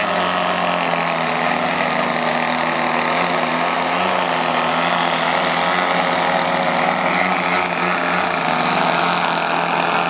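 Several giant-scale radio-controlled aerobatic planes hovering nose-up, their engines running together in a steady, layered drone of several pitches that waver slightly as the pilots work the throttles.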